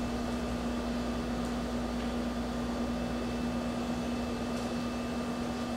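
Steady room hum: an even hiss with a constant low droning tone and fainter higher steady tones, with nothing else standing out.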